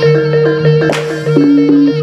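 Live East Javanese jaranan music: a reedy, wavering shawm melody (slompret) over steady held low tones and regular drum strokes, with a sharp crash about halfway through.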